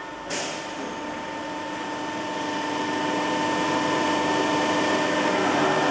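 Plastic pallet welding machine running: a steady hum with a few steady tones, growing gradually louder as its worktable carrying the welded pallet travels out. A brief hiss just after the start.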